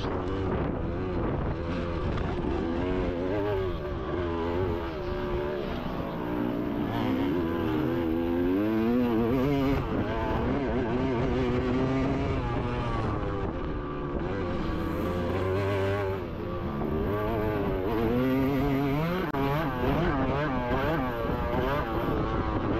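Several motocross bikes racing, their engines revving up and down and overlapping as the riders work the throttle.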